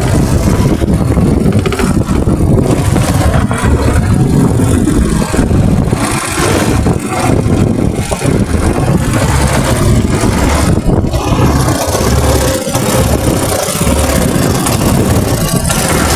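Engine of a small passenger boat running steadily, loud and low.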